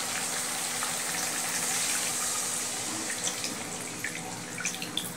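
A little water poured in a thin stream into a hot iron kadai of fried mustard and poppy-seed paste: a steady pouring hiss that slowly fades, with a few light clicks in the second half.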